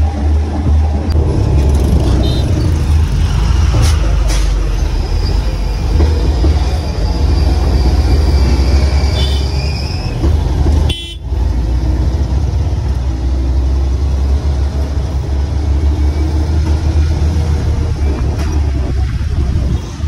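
Motor grader's diesel engine running with a steady deep drone as the machine drives along a road, heard from inside its cab. The sound breaks off for a moment about eleven seconds in.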